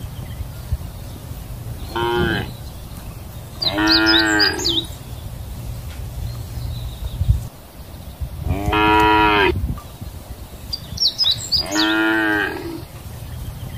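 Cows mooing four times: one short call, then three longer calls of about a second or more each, with a steady low rumble underneath between the calls.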